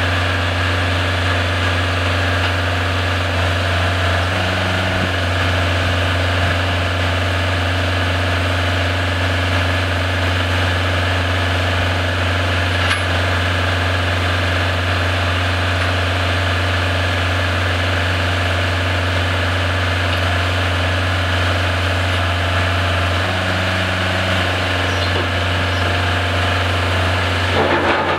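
Side-loader container truck's diesel engine running steadily at a low, even hum while the swing-lift cranes handle a 20 ft container, with a slight change in the engine note about four seconds in and again near the end.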